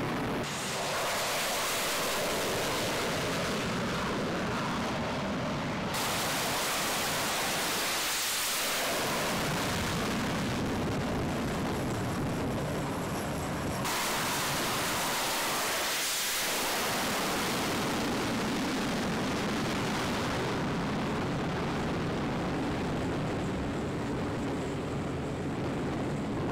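Jet aircraft engines at high power during carrier catapult launches, including an F/A-18 Super Hornet: a loud, continuous roar and hiss. The sound changes abruptly at about one, six and fourteen seconds.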